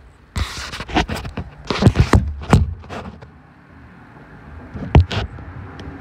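Camera handling noise as the phone is carried and set down: a quick run of scrapes and knocks in the first few seconds, then one sharp knock about five seconds in as it is put down.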